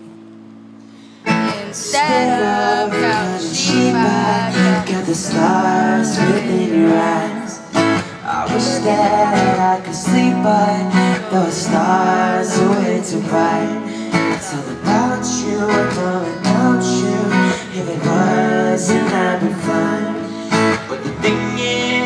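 Acoustic guitars strumming a song, starting sharply about a second in, with a voice singing over them.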